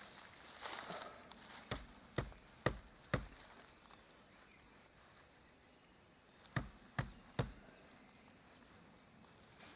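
Sharp knocks of a knife against a birch trunk as it is worked into the bark to tap the sap: four in a row about two seconds in, then three more later.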